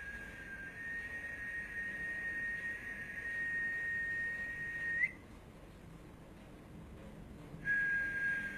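A steady, high-pitched whistled tone with a faint hiss around it, held for about five seconds while creeping slightly upward in pitch, and ending in a quick upward flick. After a pause of about two and a half seconds it starts again at a slightly lower pitch.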